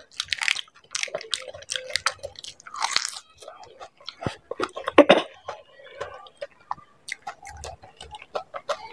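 Close-miked biting and chewing of dahi puri: the crisp fried puri shells crack and crunch between the teeth, with wet chewing from the yogurt filling. The loudest crunch comes about five seconds in.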